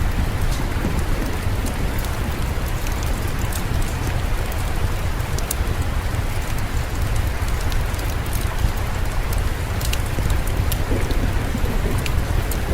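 Steady rain with scattered sharp fireplace crackles and a constant low rumble underneath.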